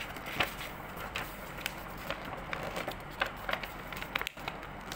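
A sheet of A4 paper rustling and crinkling as it is handled and folded by hand, with irregular sharp crackles.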